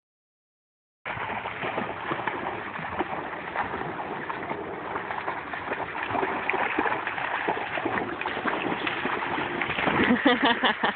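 Dogs wading and splashing through a shallow creek, with a steady wash of water and many small splashes. The splashing gets louder near the end as one dog runs through the water toward the microphone.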